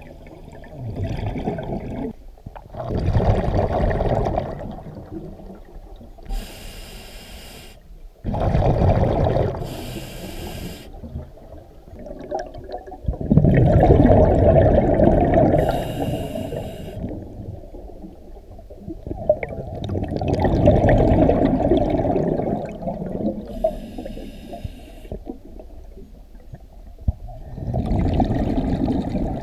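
Scuba diver breathing through a regulator underwater: a short hiss on each inhalation, then a long rush of exhaled bubbles, about every six to seven seconds.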